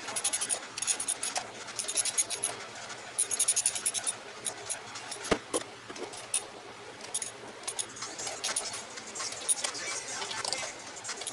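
Hand tools working on a Toyota 4A-G engine during reassembly: clusters of small metallic clicks and scraping, with a sharp knock about five seconds in.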